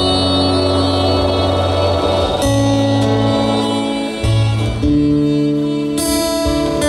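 Live music on amplified acoustic guitar, with sustained notes ringing over a bass line that changes chord several times.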